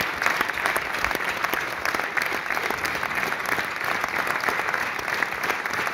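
Audience applauding steadily, many hands clapping in a dense, continuous patter.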